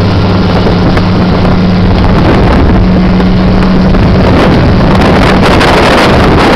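Motorboat engine running steadily at speed under load, towing a tube, with rushing water and wind buffeting the microphone. The engine's even hum sinks under the wind noise near the end.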